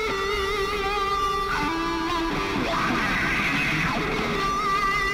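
Electric guitar playing a lead line of long held notes that waver with vibrato, with a bend down in pitch partway through.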